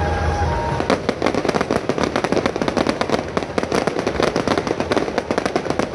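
Fireworks display: after a steady rumble, a dense run of rapid crackling pops sets in about a second in and keeps going.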